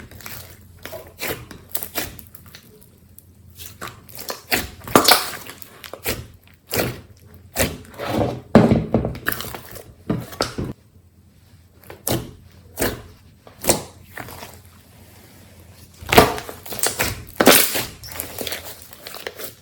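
Slime being kneaded and squeezed by hand: irregular sticky pops and clicks, with a few longer squelching squishes in the middle and near the end.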